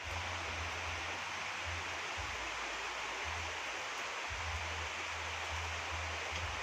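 Steady rain falling, an even hiss, with an on-and-off low rumble underneath.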